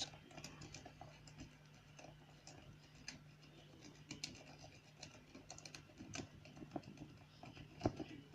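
Lock-pick rake clicking and scraping over the spool pins inside a CISA padlock's keyway: faint, irregular little ticks, with one louder click near the end.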